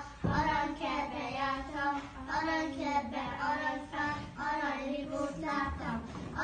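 Young schoolchildren singing a song, with a brief break about a quarter of a second in.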